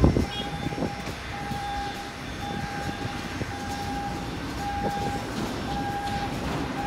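Electronic warning beeper sounding a single steady tone about once a second, each beep a little over half a second long, over a steady background rumble.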